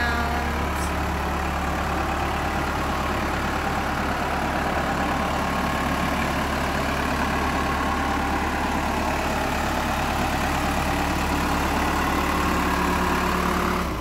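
Case 580 Super L backhoe loader's diesel engine idling steadily.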